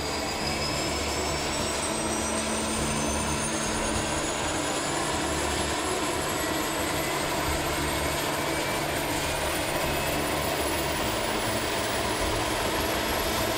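Cessna Caravan 208B's Pratt & Whitney PT6A turboprop spooling up just after light-off during an engine start on its stock 200-amp starter generator. A steady rush with a high turbine whine that rises in pitch throughout as gas-generator speed climbs.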